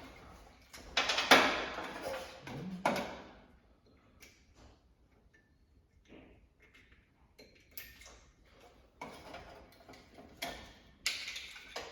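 Handling clicks and knocks from work at the back of an electric range and its burner switches: two louder knocks in the first few seconds, then scattered faint ticks and clicks, with a few more knocks near the end.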